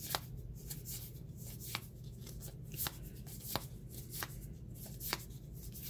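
Magic trading cards being flipped through one by one from a freshly opened booster pack: a string of light card snaps and slides, about one a second, over a low steady hum.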